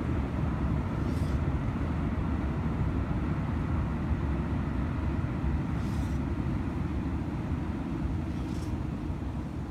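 A steady low rumble, with a few faint short hisses.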